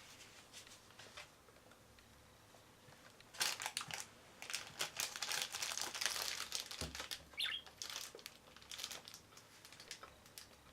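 Crinkling and rustling of a food bag being handled, a dense run of crackly clicks that starts about three and a half seconds in and dies away near the end.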